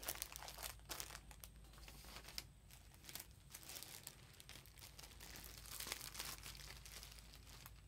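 Faint, irregular crinkling and rustling of plastic and paper packaging being handled, in a few short bursts.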